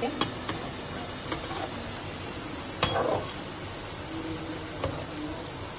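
Slices of steamed colocasia (arbi) leaf rolled in gram-flour batter sizzling steadily as they deep-fry in hot oil in a nonstick wok. A slotted spoon stirs them and clicks against the pan a few times, most sharply about three seconds in.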